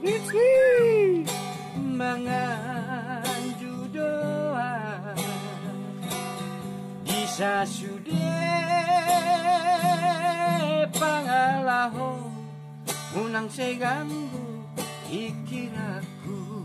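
A man singing a Batak song in a high, melodious voice over a strummed acoustic guitar, with a long held note in wide vibrato about halfway through.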